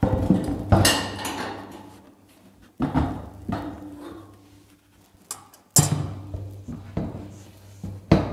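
A series of heavy metal bangs and clanks, irregularly spaced, each ringing on briefly: a steel seat frame being knocked and forced into place in a car body.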